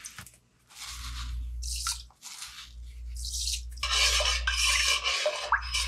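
Metal spoon stirring salt into water in a stainless steel pot, scraping and clinking against the pot, starting about four seconds in.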